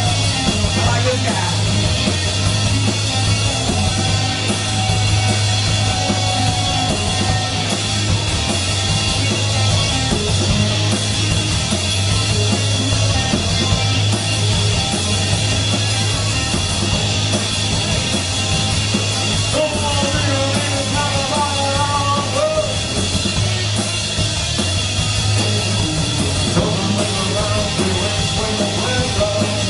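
Live rock band playing loud with a full drum kit, heard from across the room of a small bar.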